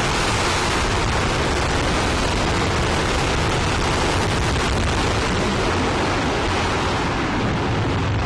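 RS-25 liquid hydrogen/liquid oxygen rocket engine firing on a test stand: a loud, steady rush of exhaust noise that does not change.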